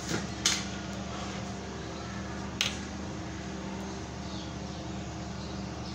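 A steady mechanical hum runs throughout. Two sharp metal clinks from the frying pan on the gas stove come through it, the first about half a second in and the louder one about two and a half seconds in.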